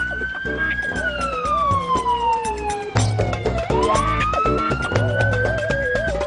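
Ambulance siren wailing in a slow rise and fall, climbing again about halfway through and stopping near the end, over background music with a steady beat.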